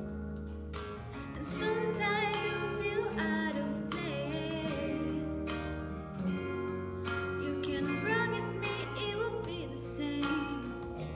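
A young woman singing solo into a handheld microphone over instrumental accompaniment, her voice wavering with vibrato on held notes.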